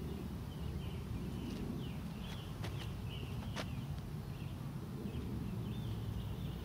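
Outdoor ambience: a steady low rumble with faint, repeated bird chirps and a few light clicks.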